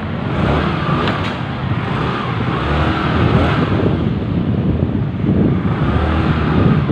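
Yamaha Mio MX i 125 scooter's single-cylinder engine running after a top overhaul, its speed rising and falling as it is revved on test.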